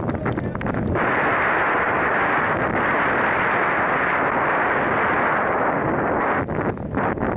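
Strong wind buffeting the camera's microphone: a loud, steady rumbling roar that eases briefly near the start and again near the end.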